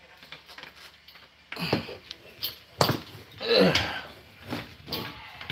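A man's breathy groans and sighs without words, starting about a second and a half in, with a sharp knock about three seconds in.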